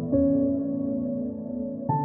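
Background music: a slow ambient piece of sustained held notes, moving to a new chord near the start and again near the end.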